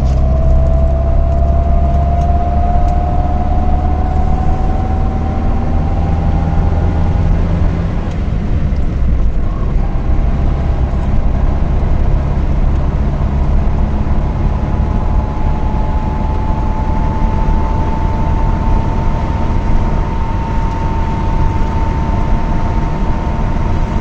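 Car driving on a highway, heard from inside the cabin: steady low engine and tyre rumble over road noise, with a faint whine that rises slowly in pitch during the first several seconds and again through the second half.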